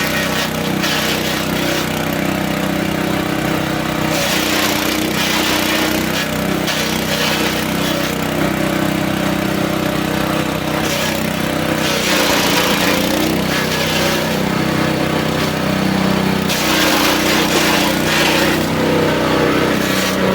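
Grass and animal-feed chopper machine running steadily under power, with stretches of louder, rougher noise a few times.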